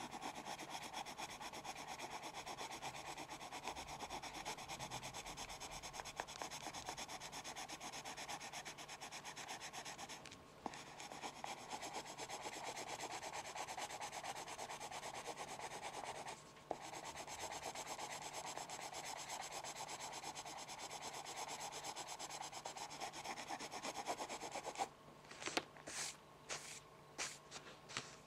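A pencil scratching rapidly on paper in a continuous shading motion. It breaks off briefly twice, and near the end turns into a run of separate, sharper strokes.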